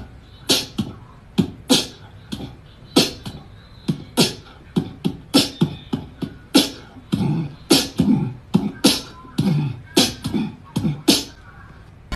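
Beatboxing: a run of sharp, hissing percussive hits mixed with low thuds, about two a second.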